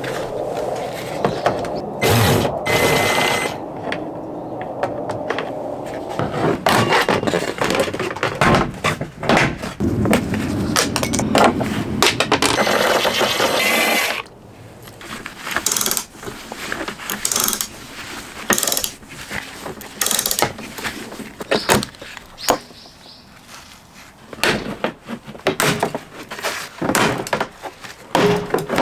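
Interior plastic trim of a Hyundai Starex van being stripped: a dense stretch of scraping and rustling, then from about halfway a run of separate clicks, knocks and snaps as clips let go and panels come away. A cordless drill backs out the screws that hold the trim.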